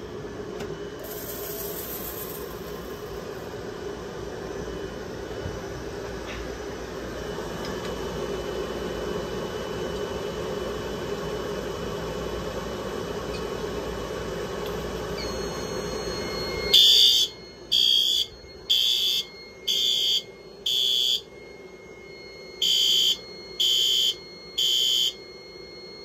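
A fog machine hisses steadily for about seventeen seconds as fog is blown at a Notifier FSP-851 photoelectric smoke detector. The detector then trips, and the fire alarm horn strobes sound high-pitched beeps about a second apart: five, a pause of about two seconds, then three more.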